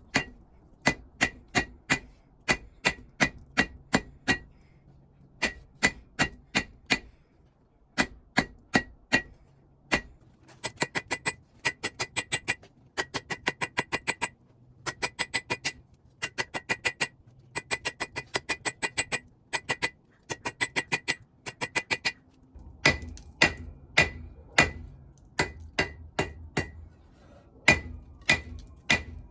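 Blacksmith's hammer striking steel on an anvil, each blow ringing, in runs of strokes with short pauses. From about ten seconds in the strokes come in faster flurries of lighter taps, then return to slower, heavier blows.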